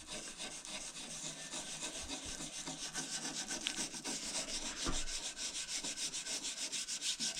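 Toothbrush loaded with toothpaste scrubbing back and forth over the grimy front of a toaster oven, a steady run of quick rasping strokes, several a second, to loosen baked-on grease.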